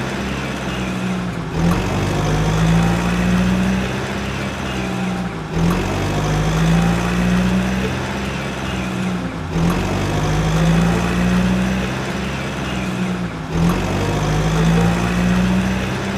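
A vehicle engine sound running steadily and repeating as an identical loop about every four seconds, with a brief dip between repeats.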